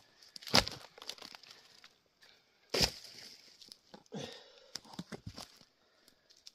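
Hand-splitting tamarack firewood: three sharp wooden knocks, about one and a half to two seconds apart, the middle one the loudest, with smaller clicks and rustling of wood between.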